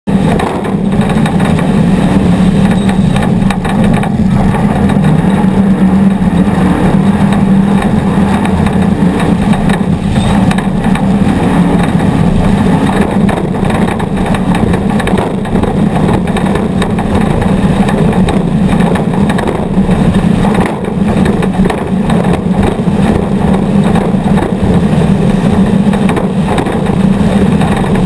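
Off-road race vehicle's engine running hard and steady at speed, heard from a GoPro camera on the vehicle, with wind and small knocks from the rough ground.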